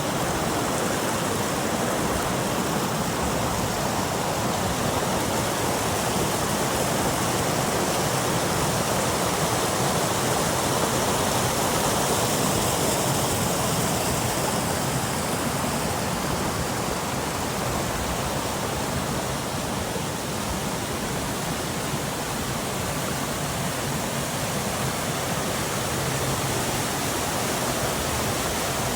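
Small upland waterfall with water splashing and rushing steadily over rocks in a hill stream.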